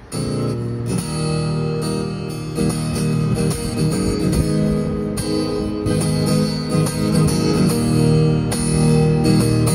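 Acoustic guitar playing an instrumental passage of a song, with no singing, coming in abruptly at the start after a brief quiet moment.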